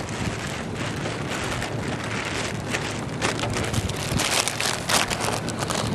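Rain from a thunderstorm, with wind on the microphone. Close raindrops land as sharp ticks, growing more frequent about halfway through.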